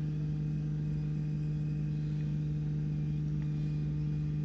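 Low-pressure electric fuel pump of a BMW F15 X5 35d diesel running to prime the fuel system, an even, steady hum. It runs smoothly with no sound of air being pushed through: the system is purged of air.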